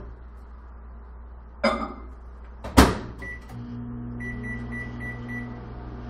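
Microwave oven in use: a clatter, then the door shuts with a sharp knock. The keypad beeps once, and the oven starts running with a steady low hum while five quick keypad beeps sound over it.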